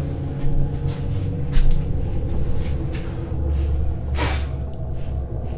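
Storm wind rumbling steadily against the old stone building, with a few light knocks and one louder knock or rustle about four seconds in.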